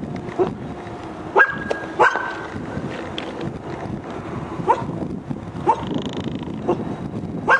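A guard dog barking in short, sharp single barks, roughly one a second, over steady background noise.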